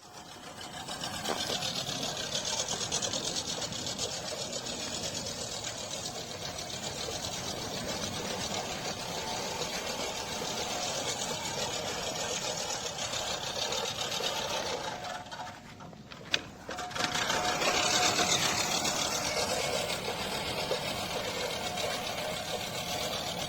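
LawnMaster LMRM1602 16-inch five-blade push reel mower cutting tall grass, its spinning reel giving a steady rapid whirr that drops away briefly about two-thirds through and then picks up again.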